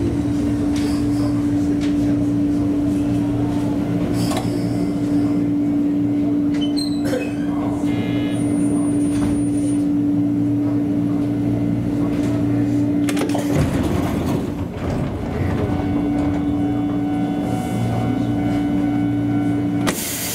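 Steady electric hum and running noise inside the driver's cab of a former Eidan 3000-series electric train as it moves slowly along a station platform and comes to a stand. The hum breaks off for about two seconds about two-thirds of the way through and changes again near the end.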